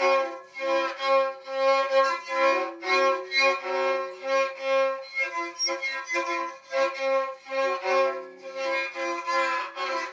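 Violin played by a learner, scratchy and squeaky: a run of bowed notes at about two strokes a second, a higher note held throughout against changing lower notes.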